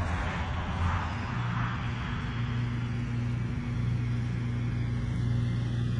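An engine running steadily at low speed, a constant low hum that settles in about a second in.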